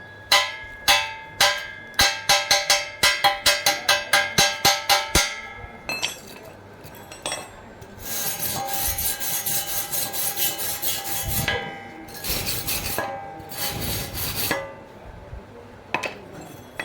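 A hammer striking steel pipe, the metal ringing with each blow, about two blows a second and then quickening to about four a second. About eight seconds in come two stretches of rough scraping on the metal, each a few seconds long.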